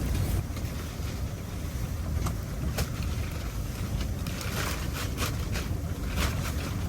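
Strong blizzard wind buffeting the microphone in a gusting low rumble, with scattered short crackles and taps over it, most of them in the second half.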